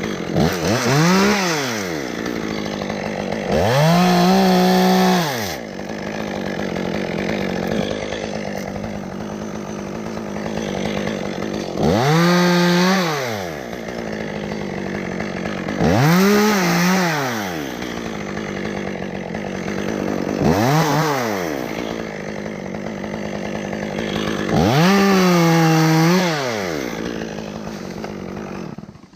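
Chainsaw revved to full throttle about six times, each rev rising, holding for a second or two and falling back to a steady idle between them, then stopping near the end.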